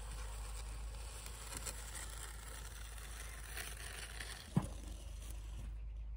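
Hand-held steel concrete edger scraping faintly along the edge of fresh concrete against a timber form, over a steady low rumble, with one short knock about four and a half seconds in.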